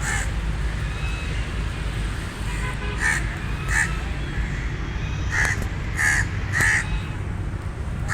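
Raven calling: short, harsh caws, one at the start and then five more spaced about a second apart in the second half, over a steady low rumble.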